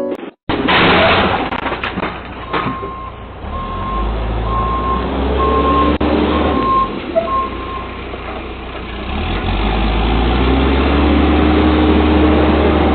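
Backhoe's diesel engine running while its reverse alarm beeps about once a second, six times, as the machine is put in reverse. Near the end the engine runs louder.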